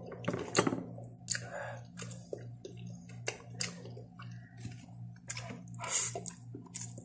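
A person eating Samyang spicy instant noodles close to the microphone: chewing, with many short sharp clicks and a few brief noisy bursts. A steady low hum runs underneath.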